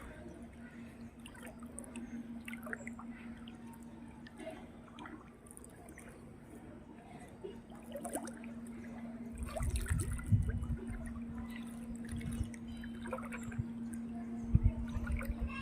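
Water trickling and dripping over a steady hum, with a few dull low thumps about ten seconds in and again near the end.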